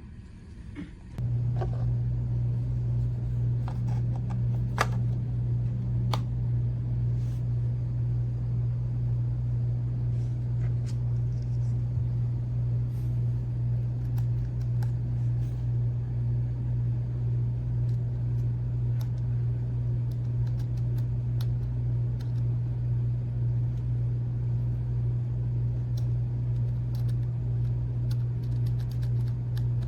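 A steady low hum or drone that starts abruptly about a second in and holds at an even level, with a few light clicks over it soon after it starts.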